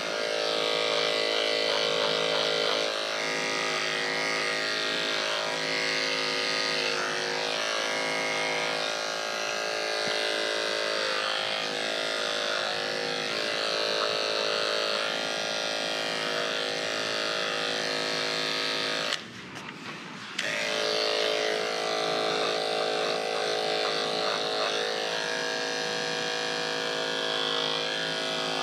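Electric dog grooming clippers running with a steady hum as they trim the fur on a dog's paw and lower leg. The hum stops for about a second about two-thirds of the way through, then runs again.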